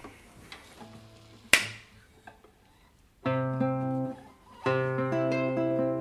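Acoustic guitar music: a quiet stretch broken by one sharp strike about a second and a half in, then strummed chords start about three seconds in and ring on.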